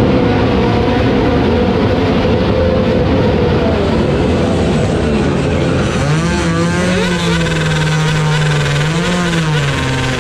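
Motorcycle engines revving hard. From about six seconds in, one engine is held at high revs for around three seconds, then drops and climbs again.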